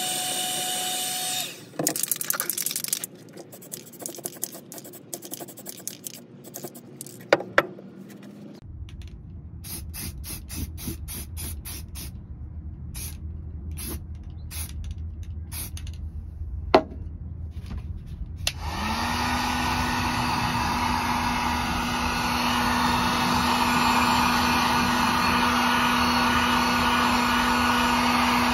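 Electric heat gun running with a steady rush of air, switching off about a second and a half in. Then come scattered clicks and short hisses as an aerosol can of coating is handled and sprayed onto the floor pan. About 19 seconds in the heat gun switches on again: its fan winds up and runs steadily, drying the freshly sprayed coating.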